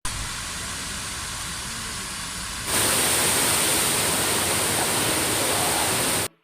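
Rushing water: a steady, even noise of water pouring, which steps up louder about two and a half seconds in and cuts off suddenly just before the end.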